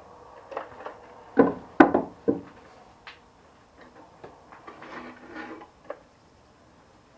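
Woodturning tools and wood being handled, with no motor running: irregular knocks and clicks, the loudest two about one and a half to two seconds in, then lighter taps until about six seconds.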